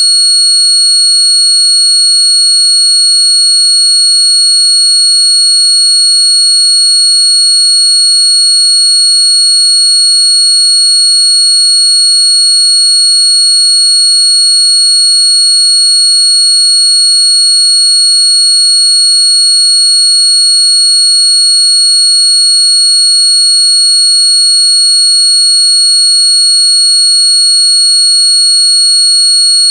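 Several steady, high-pitched electronic tones sounding together, loud and unchanging: a tone track made to annoy noisy neighbours.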